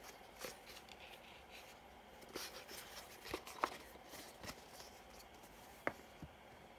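Faint handling of a cardboard spinner box and its foam insert: soft rubbing and rustling with a few light clicks and taps, the sharpest about three and a half seconds in and again near six seconds as the box is laid on the wooden table.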